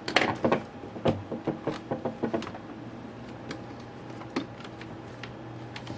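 Plastic clicks as an iBook G4's white polycarbonate top case is pressed down and its clips snap into place: a quick run of clicks in the first couple of seconds, then a few single clicks.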